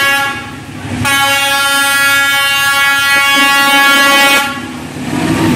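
Horn of a D12E diesel locomotive: a short blast, then one long steady blast of about three seconds, after which the locomotive's running rumble takes over as it draws near.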